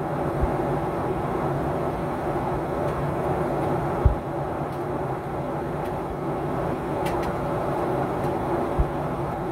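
Steady rumble of a running vehicle with a low hum, broken by three dull thumps about four seconds apart.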